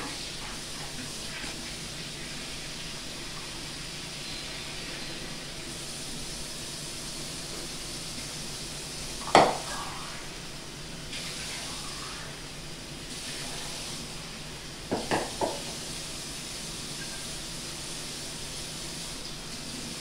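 Plastic-gloved hands picking through grated cheese on ceramic plates over a steady hiss, with one sharp knock against a plate about nine seconds in and three quick clicks around fifteen seconds.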